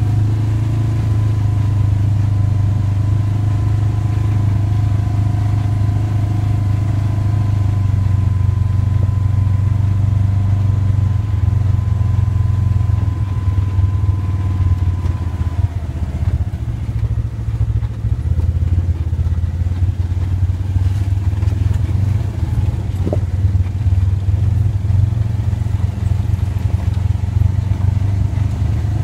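Side-by-side UTV engine running steadily while driving a dirt trail, heard from the seat behind the windshield, a low drone with a thin high whine that cuts out about halfway through.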